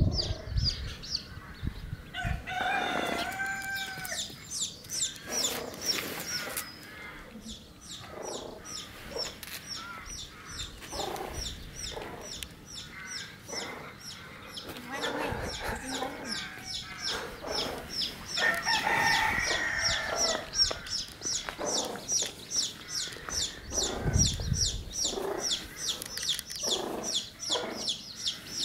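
Farmyard chickens: a rooster crowing twice, a few seconds in and again past the middle, with hens clucking in between. A fast, steady run of high peeps, about three a second, goes on throughout.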